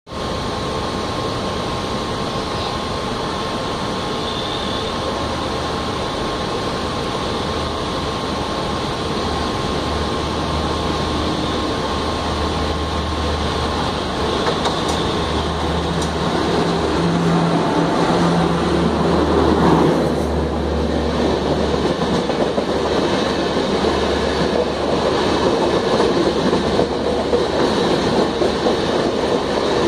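WAP-4 electric locomotive accelerating a train up the adjacent track, its drone growing louder as it approaches and passes close by about two-thirds of the way in. After that the LHB coaches rush past with their wheels clattering on the rails.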